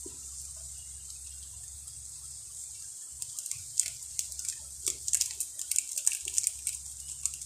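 Instant noodles and sliced carrots sizzling quietly in a pan as the last of the cooking water cooks off. A steady hiss runs throughout, and from about three seconds in there is irregular crackling with small pops.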